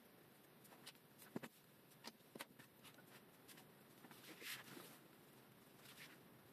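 Faint scattered taps and small clicks of hands handling a small plastic action camera, with a brief scrape about four and a half seconds in.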